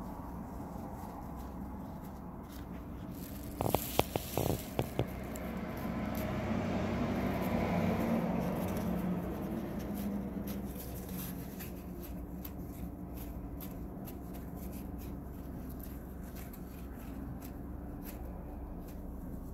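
Folded paper towel rubbed and scraped across the rough, uneven surface of mosaic tiles, with small ticks and rasps as it catches on the tile edges. A few sharp clicks come about four seconds in, and the rubbing swells louder and rougher for a few seconds around the middle.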